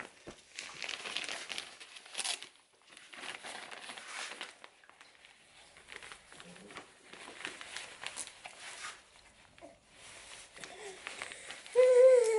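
Cloth rustling and crinkling as a full-sleeve fabric bib is handled and pulled over a baby in a high chair. Near the end the baby gives a short, loud vocal sound that falls in pitch.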